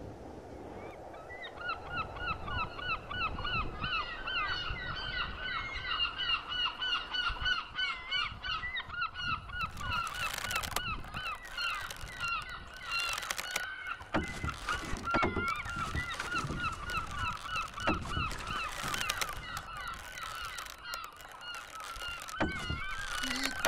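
A flock of geese honking: many overlapping calls repeat rapidly from about a second in, over a low rushing noise. Several brief louder noisy bursts come in the second half.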